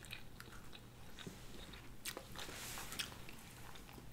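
Close-miked eating sounds: quiet chewing and biting with scattered small crunches and clicks, a slightly louder crunch about two seconds in.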